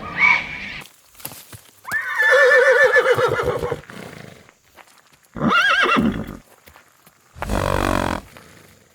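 Horse whinnying: a long quavering neigh about two seconds in and a shorter one about five and a half seconds in, followed by a short noisy burst near the end.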